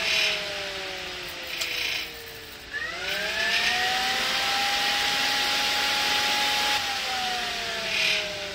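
Derale Electra-Cool cooler's electric fan whining down in pitch as it spins down after being switched off. About three seconds in it is switched back on and spins up to a steady hum, then it is cut again and winds down near the end.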